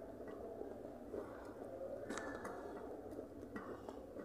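Faint sounds of eating by hand from steel plates: fingers working rice and fried fish, with a few soft clicks and scrapes over steady room noise.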